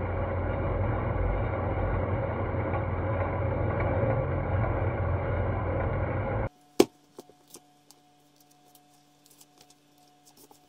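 Small metal lathe running steadily while turning a steel shaft, a steady machine noise with a low hum. About six and a half seconds in it cuts off suddenly, leaving faint clicks and rustles of book pages being turned by hand.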